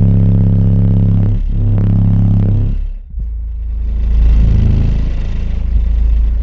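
Bass-heavy music played loud through a car's aftermarket subwoofer system. Deep held bass notes change pitch every second or so, with a short drop about three seconds in.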